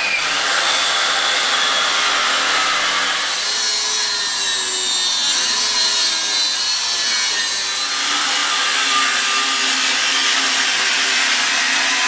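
Angle grinder grinding the steel frame rail, a loud steady grinding noise whose pitch dips and wavers in the middle as the disc is worked into the metal. The frame is being ground clean where the old cab mount was cut off, ready for a new mount piece to be welded on.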